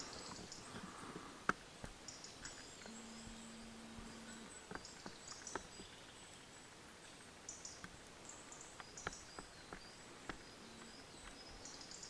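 Quiet forest ambience: faint footsteps crackling over dry leaf litter, with scattered twig-like snaps, as the person filming walks. Faint high bird chirps come and go, and a brief steady low hum sounds about three seconds in.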